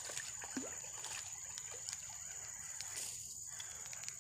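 A hooked small snakehead splashing and sloshing in shallow ditch water as it is reeled in, over a steady high drone of insects.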